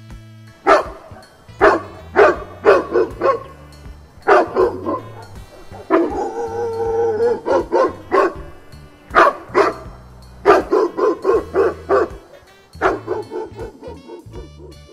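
A dog barking over and over in quick runs of short barks, with one longer held call about six seconds in, over background music.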